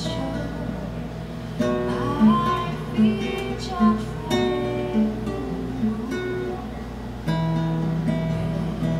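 Nylon-string classical guitar played fingerstyle: a run of plucked melody notes over accented bass notes, with a few notes gliding in pitch.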